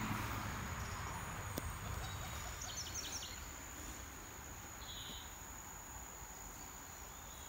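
Steady high-pitched insect trill, like crickets or cicadas in riverside vegetation, over faint outdoor hiss, with a few short chirps about three seconds in.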